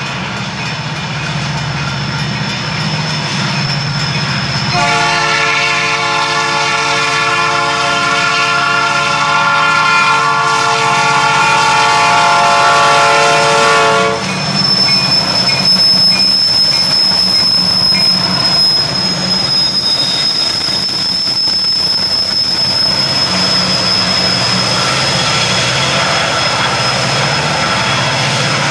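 Union Pacific EMD SD70M diesel locomotives with 16-710 prime movers roar past pulling a freight train. The lead unit sounds one long blast of its Nathan P3 horn from about five seconds in, held for about nine seconds and cut off sharply. The freight cars then rumble past with the engines still working.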